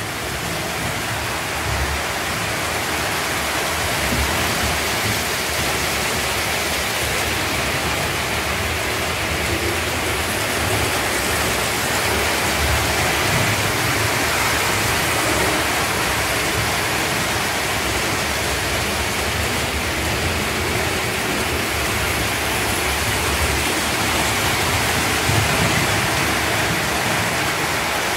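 Several toy electric trains running at once on metal track, an American Flyer S gauge train on a wooden trestle and O gauge trains below: a steady rumble of wheels and motors.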